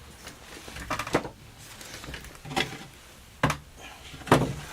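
Four separate knocks and clunks of a cabinet door and its concealed hinges being handled and set in place, the last one the loudest.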